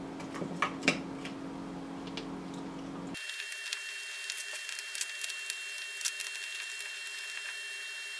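Light clicks and small knocks of hands handling a plastic camera housing, its wires and plug connectors, over a steady background hum. About three seconds in, the low hum cuts out abruptly and a thin, steady high whine remains behind the clicks.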